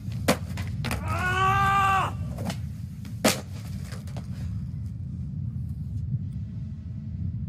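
Skateboard slam: several sharp clacks of a skateboard and body hitting concrete, the loudest about three seconds in, with a man's drawn-out pained cry about a second in, over a steady low rumble.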